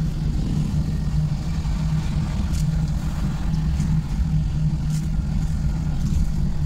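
Engine of a small open-sided passenger vehicle running steadily on the move, heard from inside the cabin as an even low hum with road rumble.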